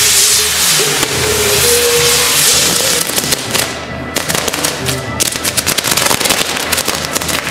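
Fireworks hissing, then crackling rapidly from about three seconds in, over festival music.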